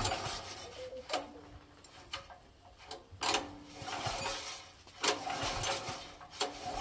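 Stanley petrol generator's recoil pull-starter yanked several times, each pull a click and a brief rattling turn-over of the engine that does not catch.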